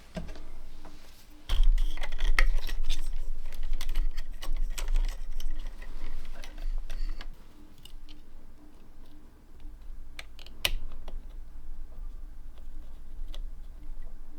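Irregular clicking and tapping of small tools and parts being handled on an electronics workbench. It is busiest in the first half, with a low steady hum underneath.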